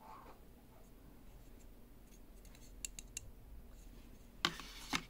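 Packaging being handled on a table: a few light clicks, then a short scraping rustle near the end.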